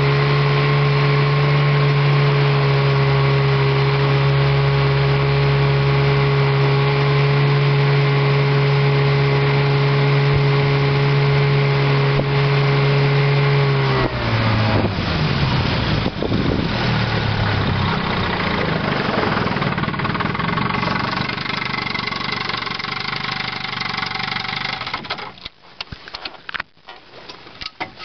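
A 1958 Evinrude Sportwin 10 hp two-cylinder two-stroke outboard runs steadily at cruising speed. About halfway through, its pitch drops suddenly and it runs slower and unevenly, as if throttled back. Near the end the sound briefly drops away and breaks up before picking up again.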